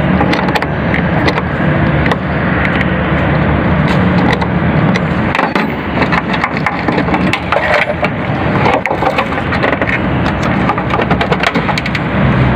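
Metal tool clicks, knocks and scraping as the positive battery terminal clamp is worked loose and taken off the post, over a steady low background rumble.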